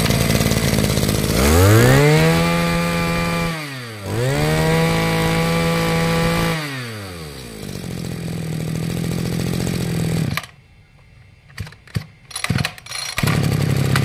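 Robin NB253 two-stroke brush cutter engine running. It is revved twice to high speed and each time falls back, settling to a steady idle. It stops about ten seconds in, a few knocks follow, and a steady engine note is back near the end.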